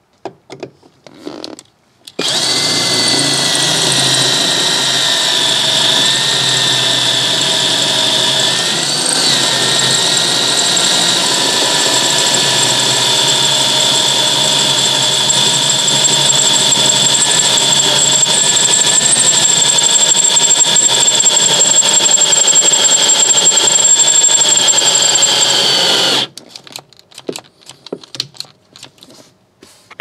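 Cordless drill boring a hole through the steel e-brake pedal, running steadily with a high whine, starting about two seconds in and stopping abruptly near the end.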